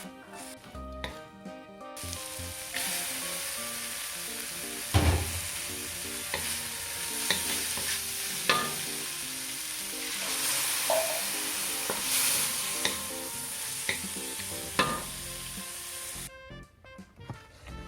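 Food sizzling as it stir-fries in a hot oiled pan. A spatula knocks and scrapes against the pan several times, sharply. The sizzling starts a few seconds in and cuts off shortly before the end, over light background music.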